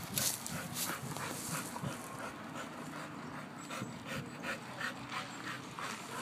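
Pit bull panting with its mouth open: a steady run of quick, breathy pants.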